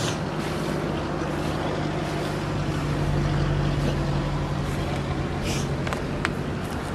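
A steady low mechanical hum runs throughout, with a few brief high-pitched sounds near the end.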